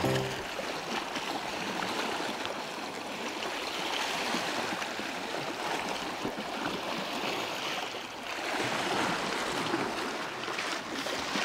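Sea water washing and lapping against shore rocks: a steady rushing noise that swells a little near the end.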